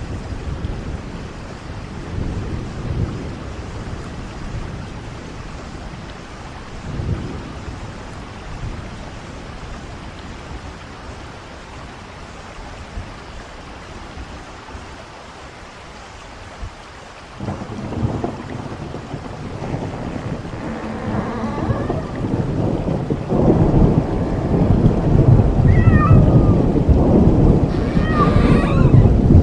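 Thunderstorm ambience: low rolling thunder over steady rain. About 17 seconds in a louder, deeper rumble comes in. Near the end, high yowling cries like a cat's rise and fall over it.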